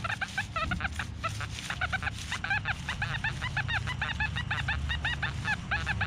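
XP Deus metal detector sounding a rapid, choppy string of short beeps that bend up and down in pitch as the coil works over a target, over a low steady hum. The broken, chattery response is one the detectorist reads as iron.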